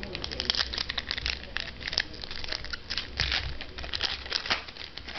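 A trading-card pack wrapper crinkling and tearing as it is ripped open and handled, a dense run of sharp crackles.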